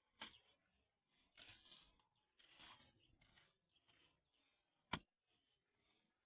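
Faint rustling and scraping in a few short bursts, with one sharp click about five seconds in.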